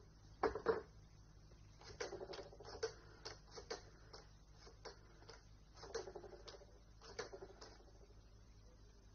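Telephone handset lifted with two sharp clicks, then several quick runs of small clicks as a number is dialled.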